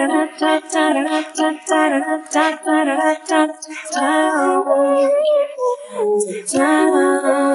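Isolated a cappella female pop vocal with no instruments. It opens with quick, short sung syllables, then moves to longer held notes that glide between pitches about four seconds in.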